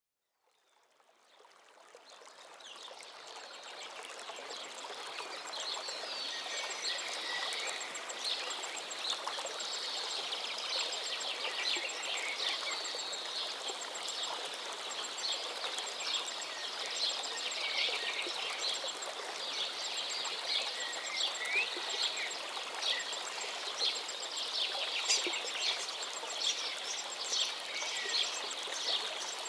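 Many small birds chirping and calling at once, with a high, quickly repeated call running through, over a steady background hiss; the sound fades in over the first few seconds.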